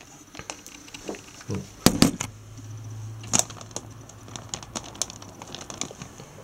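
Scattered clicks and knocks of hands handling a camera and computer parts on a wooden desk, loudest about two seconds in, with a low hum for a few seconds in the middle.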